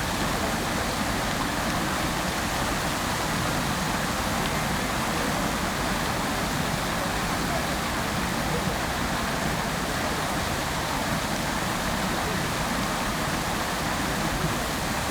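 Fountain water spraying and splashing: a steady, even rush of water.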